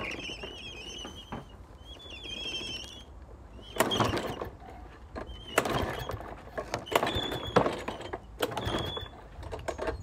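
Recoil starter cord of a walk-behind gas lawnmower yanked several times in the second half, each pull a short, loud burst as the engine turns over without catching. Birds chirp in the first few seconds.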